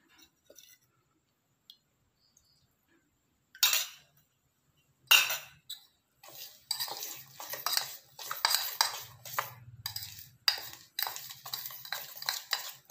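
Metal fork whisking a thin powdered-sugar glaze in a stainless steel bowl. A couple of sharp clinks come after a quiet start, then quick, continuous scraping and clinking of the fork against the bowl for the last six seconds or so.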